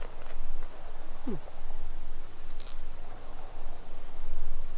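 Crickets chirring steadily in a high, even tone.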